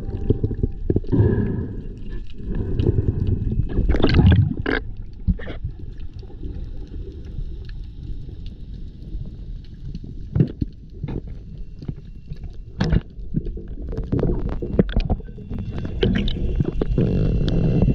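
Underwater water noise picked up by a submerged action camera: a muffled low rumble of moving water with gurgles and scattered sharp clicks.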